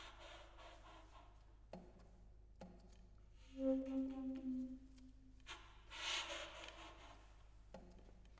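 Saxophone played very softly with extended techniques in contemporary classical music: breathy, airy tones, a short held low note in the middle, and a few brief low pops between them.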